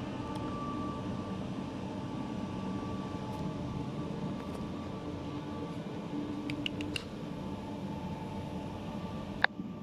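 Steady machine hum with a few faint steady tones running through it, a handful of light clicks about two-thirds of the way in and one sharp click near the end.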